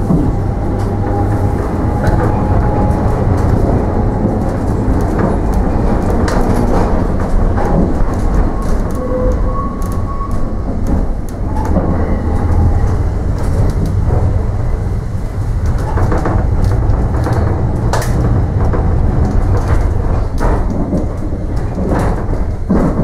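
Heritage electric tram running along its track, heard from inside the car: a steady low rumble with scattered clicks and knocks throughout.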